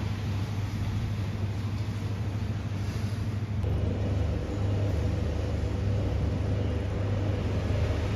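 Steady low hum and rumble of laundromat machines running, with a second, higher hum joining a little over three seconds in.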